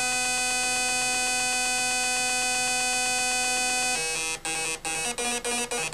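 Electric buzzing and humming of a T gauge model train's magnetic PCB linear motor drive, a steady pitched buzz for about four seconds that then breaks into rapid pulsing.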